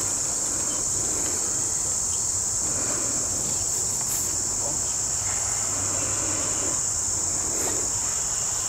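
Steady high-pitched insect chorus, an unbroken trill.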